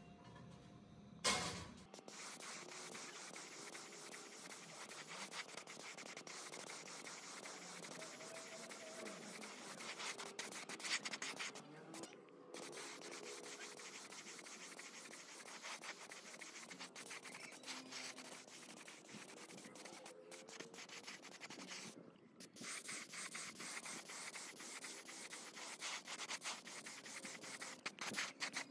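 Hand sanding: sandpaper rubbed back and forth in quick strokes, stopping briefly a few times. A single sharp knock sounds about a second in.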